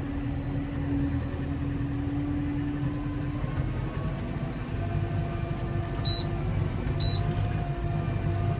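Tractor engine running steadily. Two short high beeps come about a second apart near the end.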